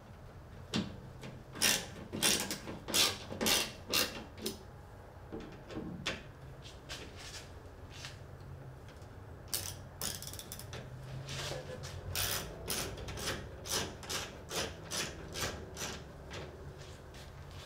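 A hand tool driving in the bolts of a pickup's tail light housing, clicking in short strokes about two a second: one run near the start, a pause, then a longer run in the second half.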